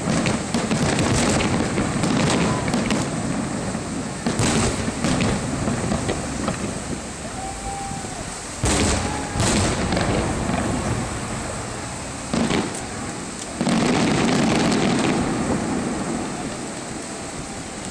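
Aerial fireworks shells bursting: a run of booms and crackles, with several louder bangs in the second half and a spell of dense crackling about three-quarters through.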